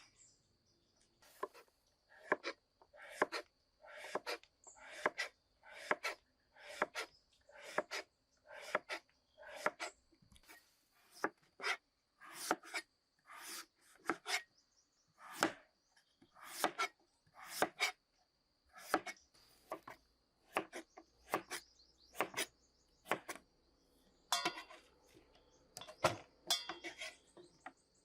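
A blade chopping on wood, a little more than one stroke a second with some quick double strokes, against a thin steady high insect whine.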